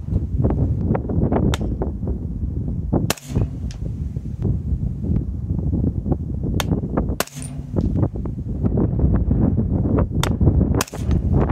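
Suppressed 300 Blackout rifle with a Razor 7.62 suppressor firing sharp, muffled shots a few seconds apart, about three in all, over heavy wind buffeting on the microphone.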